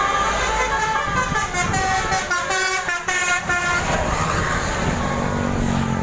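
Bus 'telolet' multi-tone musical horn playing a quick melody of short notes that step up and down in pitch, for about three and a half seconds, then a steadier, lower sound carries on.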